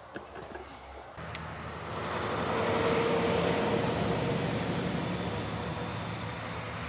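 A passing engine drone: a steady hum carrying a few low tones that starts about a second in, swells over the next two seconds, then slowly fades.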